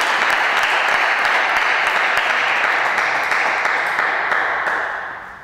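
Spectators applauding steadily, the clapping dying away in the last second or so.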